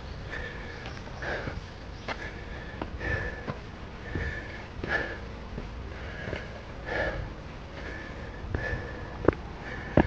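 A person breathing hard through the nose while walking uphill, about one breath a second, over low rumble from the handheld microphone. A few sharp clicks come near the end.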